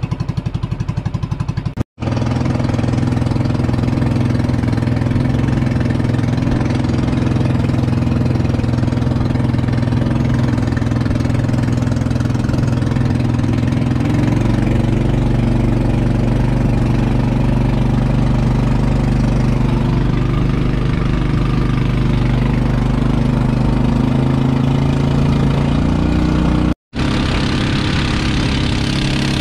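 A small engine running steadily at a nearly even speed. It cuts out abruptly for a moment twice, about two seconds in and near the end.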